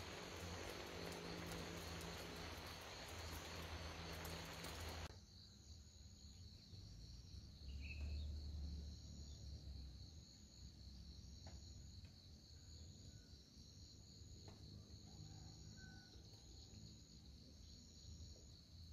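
Insects chirring steadily in a high continuous trill with a pulsing trill above it, faint. Over the first five seconds a steady hiss sits under it, then cuts off abruptly.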